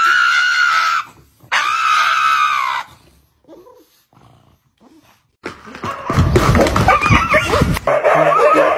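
A pug screaming in two long, high-pitched cries. From about five and a half seconds in comes a loud jumble of several dogs barking and howling.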